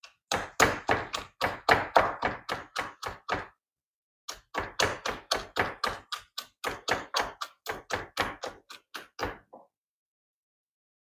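Wooden pestle pounding ginger and spices in a wooden mortar: quick, even strikes at about four a second, in two runs with a short pause about three and a half seconds in.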